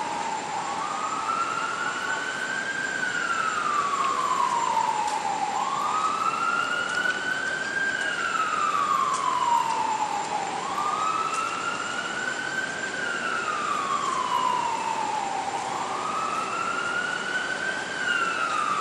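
An emergency vehicle's siren wailing: a slow rise and fall in pitch that repeats about every five seconds, four times over, above a steady background hum of traffic.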